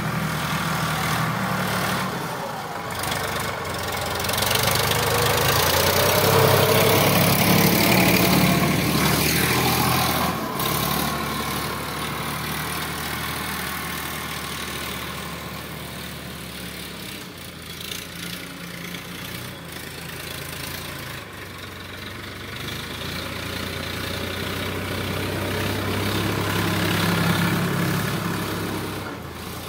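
Sonalika DI 745 tractor's diesel engine running while pulling a tillage implement through soil. It grows louder and fades twice as the tractor passes close and moves away.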